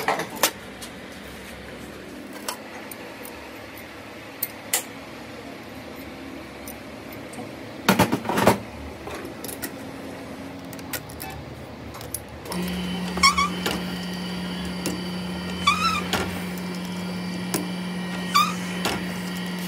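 Metal clinks and knocks of a brake caliper and its steel guide pin being handled and fitted into a lathe's chuck, with a louder cluster of knocks about eight seconds in. About twelve seconds in a steady machine hum starts and runs on, with short high squeaks every couple of seconds.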